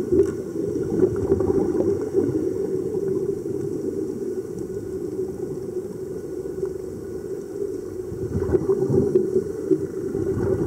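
Steady low underwater rumble with gurgling, picked up by a submerged camera beside divers in air-fed sea-walking helmets.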